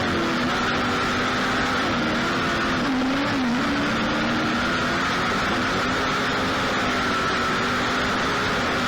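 Race car engine running steadily under load; its pitch dips and rises back a couple of times around the middle, as with throttle lifts.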